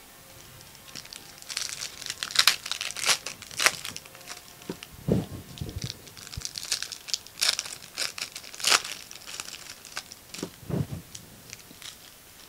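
Trading-card pack wrappers crinkling and tearing as the packs are handled and ripped open by hand: an irregular run of sharp crackles that starts about a second in.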